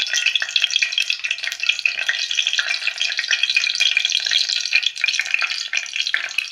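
Mustard and cumin seeds sizzling and crackling in hot oil, a dense run of small pops throughout: the first tempering (tadka) step of dal fry, oil hot enough to make the seeds spit.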